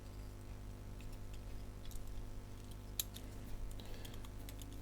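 Faint scattered clicks and light handling of small plastic parts, a clear click about three seconds in and a few small ones near the end, over a low steady hum.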